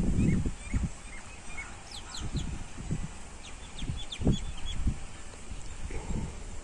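Birds calling: bursts of short, high chirps over a low rumble, with several low thuds, the loudest at the very start and about four seconds in.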